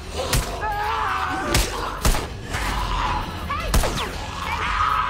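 TV drama soundtrack from an action scene: four sharp bangs at uneven intervals, mixed with strained, wavering cries from voices.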